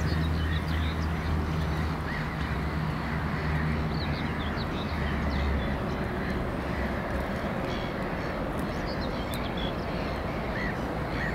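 Diesel engine of a 2TE116U locomotive droning low and steady as it moves away, fading out about five or six seconds in. Small birds chirp throughout.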